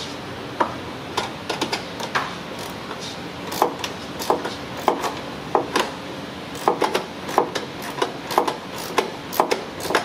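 A hand ratchet clicking in short, irregular strokes, about one to two clicks a second, as a stubborn radiator-mount screw is backed out.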